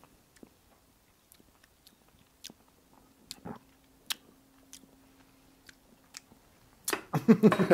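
Quiet mouth sounds of a man tasting a creamy garlic sauce from a spoon: scattered lip smacks and tongue clicks as he savours it.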